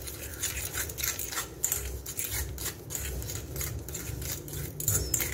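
Spoon stirring mashed banana with sugar and yeast in a glass bowl: a quick, uneven run of scrapes and clinks of the spoon against the glass.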